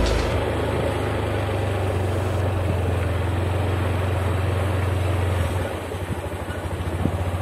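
Motorcycle engine running at low speed with a steady low hum. About six seconds in it drops to a slower, pulsing putter as the bike slows.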